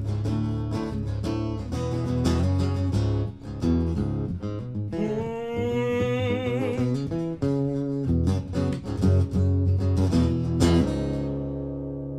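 Acoustic guitar played live, plucked notes and chords over deep low notes, closing a song. A sustained note bends and wavers about five seconds in, and a last chord struck near the eleventh second is left to ring out and fade.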